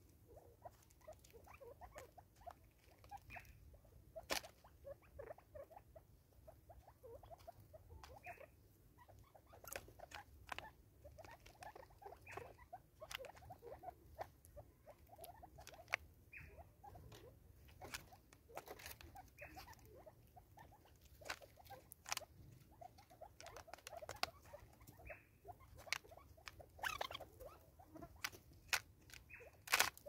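Francolins pecking seed from a plastic container on a wooden stump: irregular sharp taps and clicks of beaks on plastic and wood, with a louder strike about four seconds in and another near the end, and soft short calls between.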